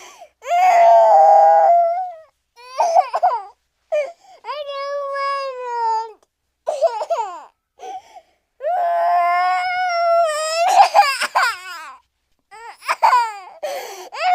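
Cartoon crying sound effect: a character's high-pitched wailing sobs, a string of separate cries with short gaps, two of them long and drawn out.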